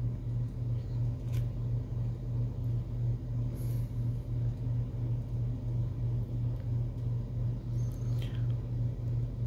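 A steady low hum of room noise with a faint pulse, and a few soft, faint rustles of Bible pages being turned while the passage is looked up.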